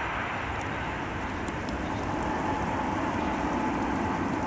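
Rolling noise of a passing InterCity passenger train dying away down the line, a steady rushing haze with a faint steady whine coming in about halfway.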